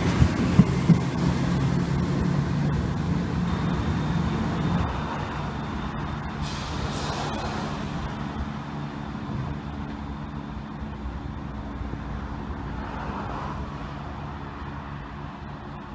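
ScotRail Class 170 Turbostar diesel multiple unit passing close by, its underfloor diesel engines running, with a few sharp clacks in the first second. The sound then fades steadily as the train draws away down the line.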